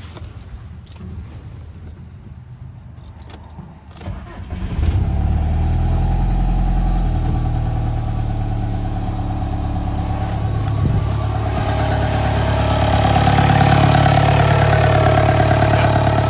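Swapped-in 1.9 ALH TDI diesel engine started with the key about four seconds in, catching at once and then running steadily at idle, a little louder in the second half.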